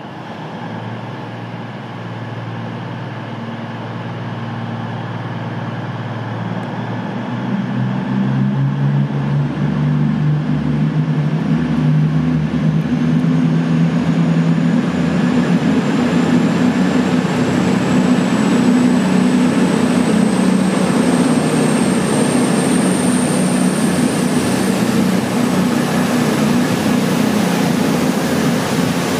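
CrossCountry Class 220/221 Voyager diesel multiple unit running in along the platform, its underfloor diesel engines growing louder as it comes near. A thin high whine rises slowly in pitch through the middle of the run.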